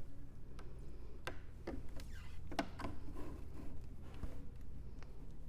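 Light clicks and knocks of slush machine parts being handled as the seal is fitted onto the hopper: a handful of scattered taps, most of them in the first half, over a steady low hum.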